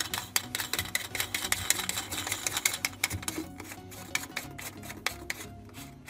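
Rapid, irregular clicking and scraping of a kitchen mixer tap's mounting nut being turned by hand on its threaded stud under the sink, with faint music behind it.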